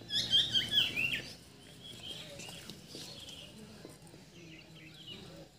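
Two puppies play-fighting, with a run of high-pitched yelps and squeals in the first second or so, then quieter whines and scuffling.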